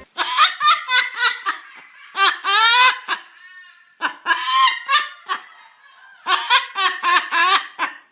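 High-pitched laughter in four bouts of quick, rapid pulses with short pauses between them.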